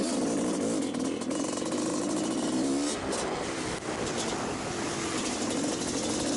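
Supermoto racing motorcycle engine under hard running, its note rising and falling with the throttle, dropping briefly about three seconds in and picking up again.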